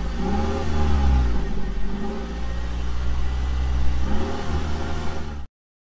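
An engine running with a deep rumble, its pitch rising and falling a few times, cutting off abruptly near the end.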